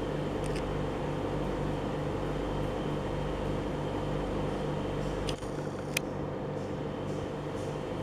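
Steady hum of aquarium equipment (filter or air pump) running, with a low drone that pulses a few times a second. A low rumble drops away about five and a half seconds in, and there is a single sharp click about six seconds in.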